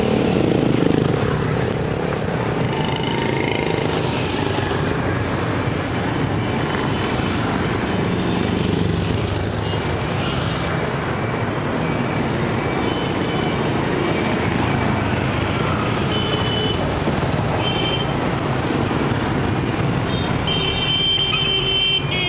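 Dense street traffic, mostly small motorcycles and scooters, passing close by in a steady stream of engine hum and tyre noise, with now and then short high beeps, a longer run of them near the end.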